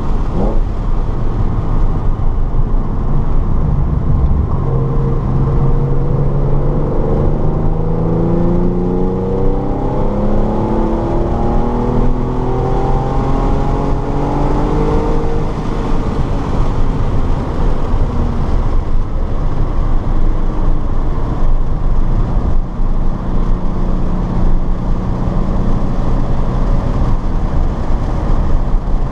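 Car engine on a race track accelerating hard, its pitch rising steadily for about ten seconds, then holding a steadier note, over constant loud wind and road noise.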